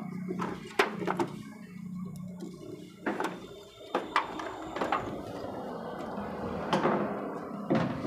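Plastic clips and housing of a Samsung washing machine's control panel being prised loose and handled: a series of sharp plastic clicks and knocks, irregularly spaced, with scuffing in between.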